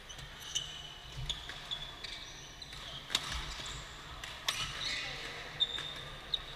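Badminton rally in a large hall: sharp cracks of rackets hitting the shuttlecock about once a second, with short high squeaks of court shoes on the floor.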